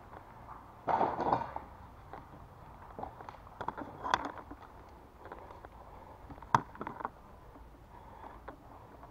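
Scattered sharp pops of paintball fire: a short quick cluster about a second in, single pops around four and seven seconds, and the loudest, sharpest pop about six and a half seconds in.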